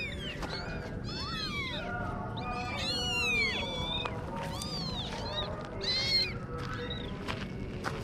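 Kittens meowing over and over, short high-pitched calls that rise and fall, several of them overlapping around the middle.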